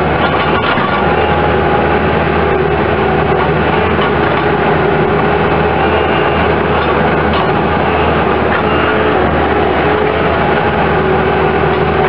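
Bobcat S185 skid steer loader's diesel engine running steadily while the machine drives, heard from the operator's seat, with a steady whine over the engine sound.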